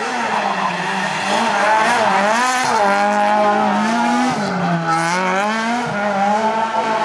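Rally car engine running hard at high revs through a tarmac-stage corner. The pitch wavers and dips as the driver lifts and changes gear, dropping most about five seconds in before climbing again.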